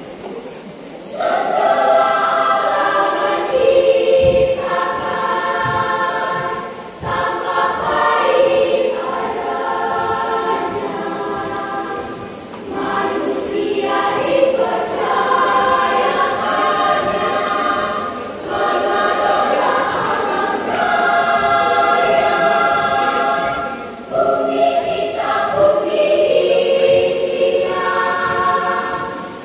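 Children's choir singing together, coming in about a second in and going on in phrases with short breaks between them.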